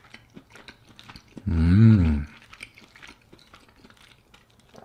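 A person chewing a mouthful of curry, with small mouth clicks throughout. About a second and a half in comes a loud hummed "mmm", under a second long, that rises and then falls in pitch.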